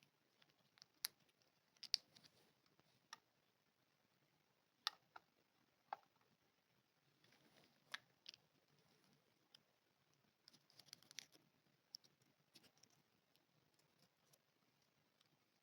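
Sparse, irregular sharp clicks and taps of small plastic toy parts and packaging being handled while a Zuru Mini Brands mini fridge toy is unboxed, with a brief stretch of soft rustling about seven seconds in and a quick cluster of clicks about eleven seconds in.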